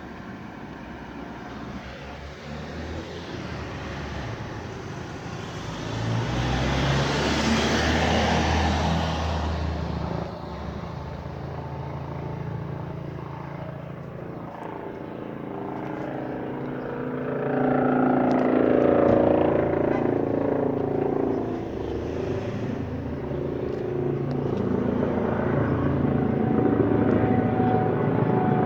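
Police helicopter's engine and rotors running overhead as a steady low drone. It swells louder twice, first as a rushing noise about six to ten seconds in, then with a pitched whine from about seventeen to twenty-one seconds.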